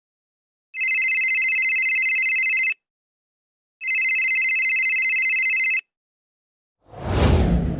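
Phone ringtone sound effect: two electronic trilling rings of about two seconds each, a second apart. Near the end a whoosh sound effect begins, sweeping down from high pitch into a low rumble.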